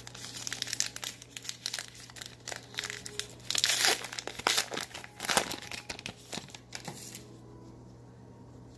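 Crinkling and tearing of a baseball card pack's foil wrapper being opened and handled, in dense irregular crackles. It is loudest midway and dies down about seven seconds in.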